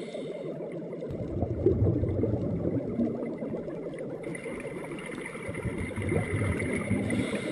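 Underwater bubbling and gurgling, with a deep rumble coming in about a second in and a higher hiss joining a little past the middle.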